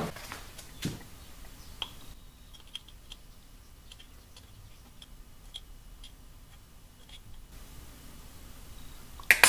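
A spoon scooping powdered sugar out of a glass jar into a paper cup: a few clinks, then a run of light, quick taps as the sugar is shaken off the spoon, and a louder knock near the end.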